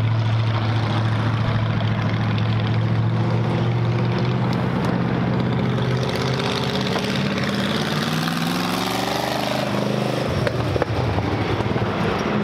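Vintage race car engine, very loud, running at a steady pitch for the first half. From about halfway its pitch climbs for several seconds as the car accelerates down the track, and the note shifts near the end as it goes past.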